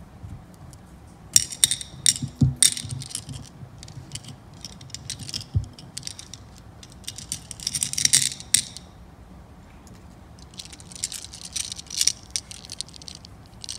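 Small Czech glass tulip beads clicking and rattling against each other and a clear plastic box as they are dropped and shaken in it, in several bursts.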